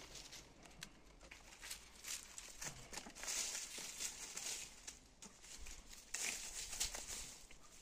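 Lohmann Brown hens foraging in garden plants, rustling through grass and leaves and scratching at the soil, with scattered soft crackles and two louder spells of rustling.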